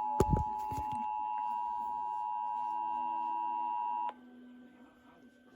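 Emergency Alert System attention signal: the steady two-tone alert tone, played over a broadcast to announce the statewide required monthly test, cutting off abruptly about four seconds in. A couple of sharp thumps sound in the first second.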